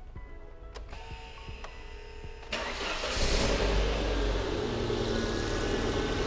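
Volvo S40 petrol engine started about two and a half seconds in. It catches, flares up in revs and settles to idle. This is the first start after fitting a replacement mass air flow sensor.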